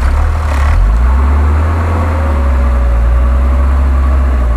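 Engine of a modified off-road truck running steadily with a heavy low rumble, stuck between trees in snow. A faint whine swells and fades over the last couple of seconds.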